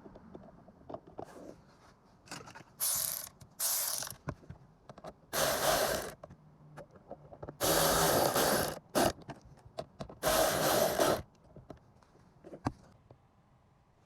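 Hand tool working on the heater fan housing: five rasping strokes, each half a second to a second long, with small clicks and knocks between them.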